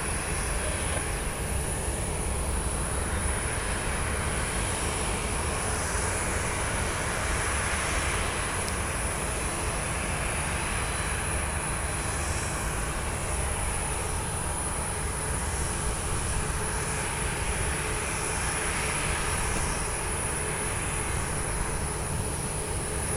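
Steady aircraft noise across an airport apron: a broad rumble with a constant high-pitched whine, swelling a little twice.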